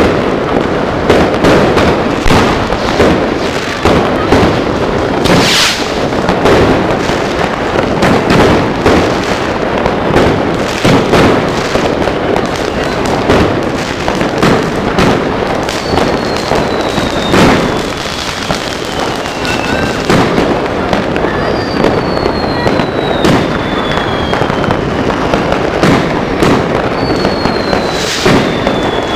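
Fireworks going off at close range: a dense, rapid barrage of crackling bangs, with one especially loud bang about five seconds in. Long falling whistles sound three times in the second half.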